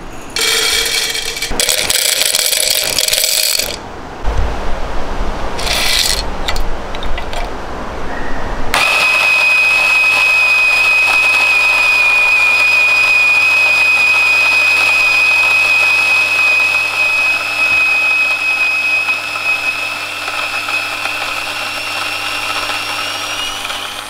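Coffee beans rattling into the plastic hopper of a Raccea 60 mm flat-burr electric grinder, with a second short rattle a few seconds later. About nine seconds in, the grinder motor starts and runs steadily with a high whine as it grinds the 18 g dose, the whine rising slightly near the end.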